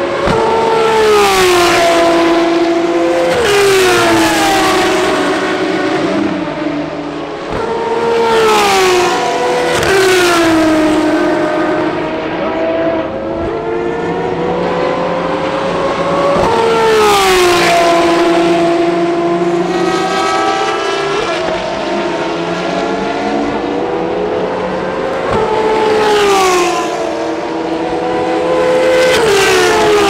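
Ferrari V12 track cars (FXX-K Evo, FXX, 599XX) running at speed. The engine note climbs, then sweeps steeply down, again and again as car after car goes by.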